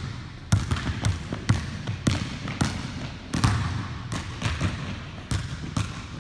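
A basketball dribbled on a hardwood gym floor, bouncing about twice a second with a few uneven gaps, each bounce echoing in the large gym.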